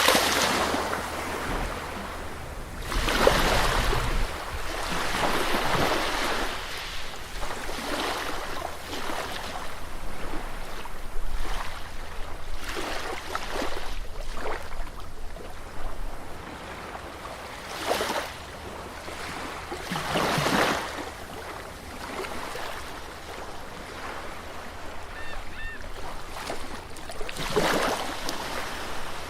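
Sea waves breaking on a beach in irregular surges a few seconds apart, with a steady wash of surf between them.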